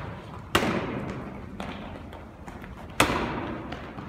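Two heavy thuds on a gymnasium floor, about half a second in and again at three seconds, each ringing out in the hall's long echo, with fainter knocks between them.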